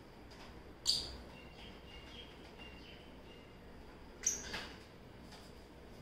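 Lovebirds chirping: a sharp high call about a second in, then a run of soft short chirps, and two more sharp calls a little past four seconds.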